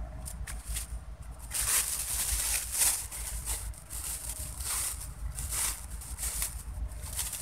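Rustling and handling noises in irregular bursts, starting about a second and a half in, as things are rummaged through on the ground, over a low steady rumble.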